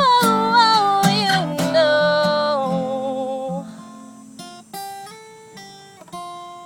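Acoustic guitar music at the end of a song. Held notes fade away over the first few seconds, then a handful of single plucked guitar notes ring out one after another.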